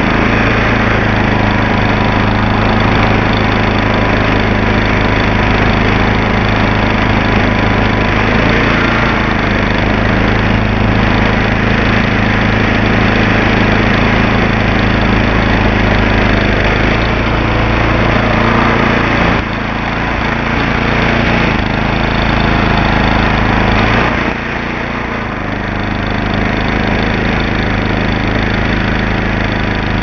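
Gasoline snowblower engine running steadily under load as it throws snow out of its chute. The level steps down slightly twice in the second half.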